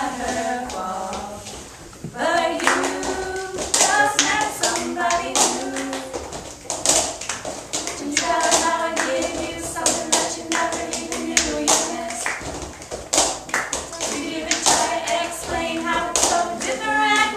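Girls singing a song in harmony without instruments, over a rhythm of sharp hand taps and claps on a table, several strikes a second.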